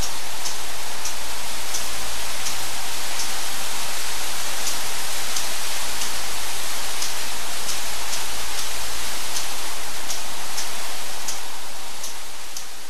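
Steady airy rush of the installation's cooling fans blowing into plastic garbage bags, with light irregular clicks about one or two a second from the switching relays and a low rumble that comes and goes as fans cut in. It fades out near the end.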